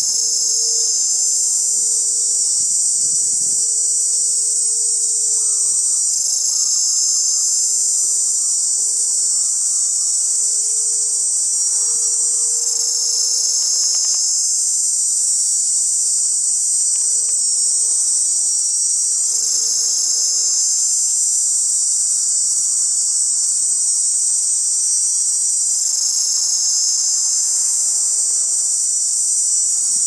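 A male cicada singing: a loud, continuous, high-pitched buzz made with its tymbals, shifting slightly in texture about every six seconds.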